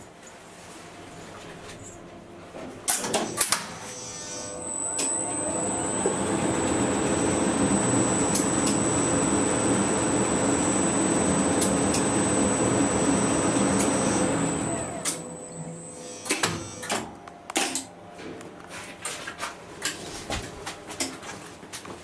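1961 Schindler elevator's drive machinery on a run. A few sharp clicks come first. The running noise then builds up over a couple of seconds and holds steady for about eight seconds with a thin high whine. It dies away, followed by more scattered clicks and knocks.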